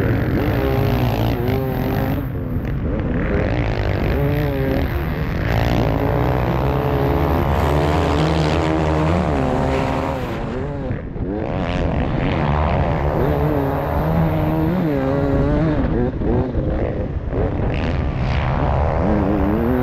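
Beta 300 RR two-stroke single-cylinder enduro motorcycle engine at hard throttle, its pitch climbing and dropping back again and again as it is shifted up through the gears. It briefly comes off the throttle about eleven seconds in before pulling hard again.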